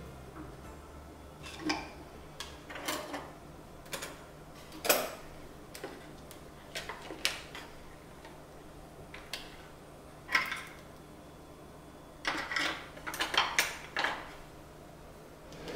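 Metal cutlery and kitchen utensils knocking and clinking against the wooden compartments of a drawer organizer and against each other as they are picked up and set down. Scattered single knocks, with a quick run of clinks near the end.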